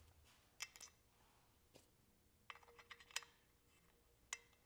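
Faint clicks and light taps of small metal hardware and an aluminium bracket being handled: a few single clicks, with a short cluster about halfway through.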